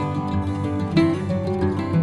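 Background music led by an acoustic guitar, with plucked notes changing every fraction of a second.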